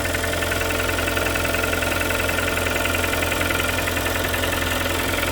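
Kia Sportage 3's 2.0-litre G4KD (Theta II) four-cylinder petrol engine idling steadily with a rapid, regular knock. The knock is the fault that has brought the engine in for a full overhaul.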